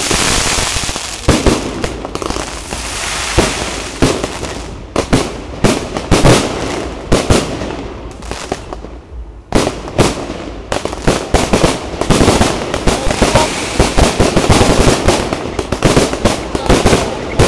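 Fireworks display: a jet of sparks hissing over the first few seconds, with aerial shells going off in separate bangs. From about ten seconds in the bangs come thick and fast, a dense run of reports and crackle.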